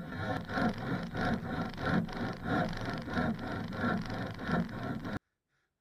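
Hand saw cutting through an old weathered wooden beam, about three strokes a second. It cuts off suddenly about five seconds in.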